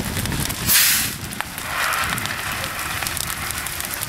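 Burning wooden shed crackling and popping in a fully involved fire, with a short loud hiss about a second in.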